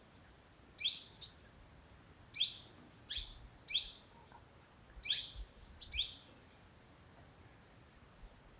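Sunbird calling: short, sharp high chirps, often in quick pairs, about one to two a second, stopping about six seconds in.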